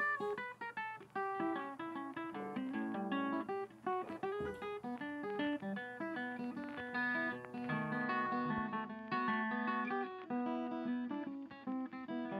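Background music: an acoustic guitar picking a quick, steady run of plucked notes.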